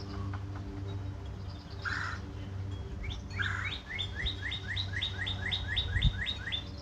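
A songbird sings a rapid run of downslurred whistled notes, about four a second, through the second half. Two short, harsher calls come before it.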